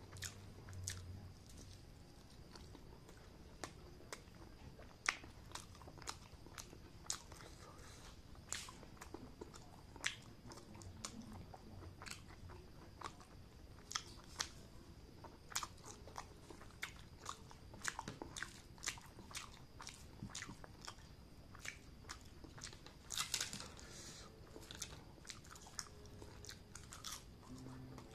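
Close-up eating sounds: a person chewing with the mouth open, with many irregular wet clicks and smacks of the lips and tongue, as chicken, egg and gravy rice are eaten by hand.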